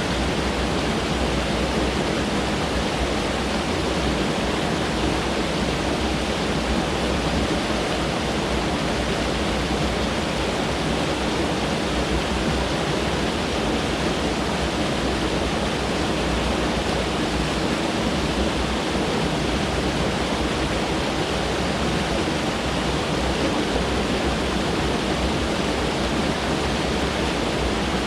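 Mountain stream rushing over rocks: a steady, even rush of water with no change.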